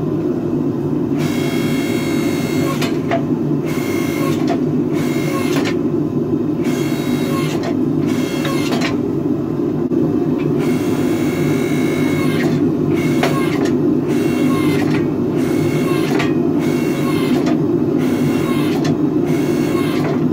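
Electric log-splitter forge press running: its motor and hydraulic pump hum steadily, with a higher whine coming and going every second or two.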